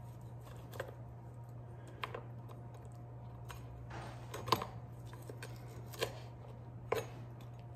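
Kitchen knife slicing through a rack of smoked ribs, its blade knocking against the cutting board in about five scattered clicks, over a steady low hum.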